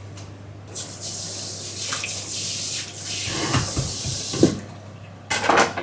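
Water running from a tap into a sink or basin for about four seconds, then stopping, with a few knocks near the end and a short clatter just before the close.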